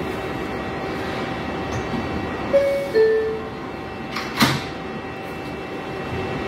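R142A New York subway car's door-closing chime: two descending tones about two and a half seconds in, then a single thump about four and a half seconds in as the doors shut, over the car's steady hum.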